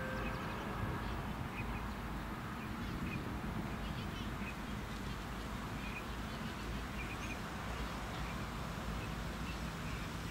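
Outdoor ambience: a steady low rumble with faint, short bird chirps scattered through it every second or so.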